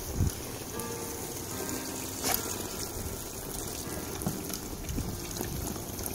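Water from a garden hose gushing and spattering steadily while a dog bites at the hose end and gulps at the jet.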